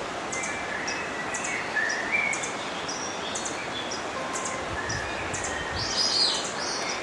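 Several songbirds chirping and calling over the steady rush of a flowing river. Short high chirps repeat throughout, with a louder burst of calls about six seconds in.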